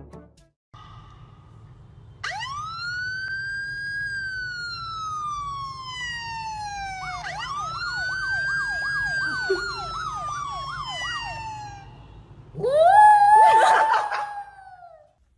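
Parrot mimicking a siren: a clear whistle that swoops up and slowly falls, then warbles rapidly up and down like a yelp siren, ending about a second later in a louder, rougher rising call.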